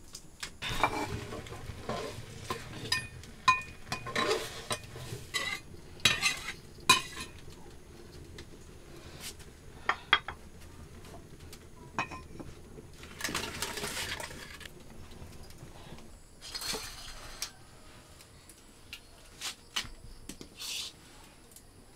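Pots, bowls and metal utensils clinking and clattering during cooking preparation: scattered short clinks and knocks, with a few longer stretches of clatter.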